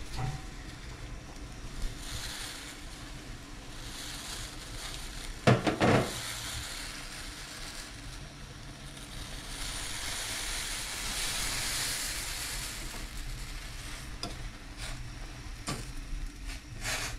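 Instant noodle broth bubbling at a boil in a stainless-steel pot on a gas stove, a steady hiss that swells twice. There is a brief loud rattle about five and a half seconds in, and a fork clinks against the pot as the noodles are stirred near the end.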